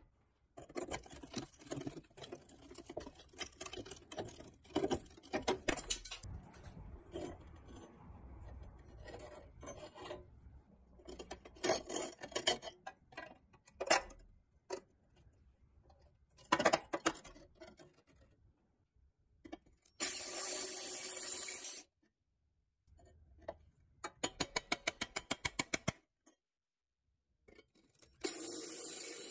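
Rusty sheet-steel toy truck parts being scraped, rubbed and knocked against a wooden floor as they are worked loose, with a bracket pulled off a rusty pin. A quick run of ticks comes about 24 seconds in, and near the end an electric drill starts boring into the steel bracket.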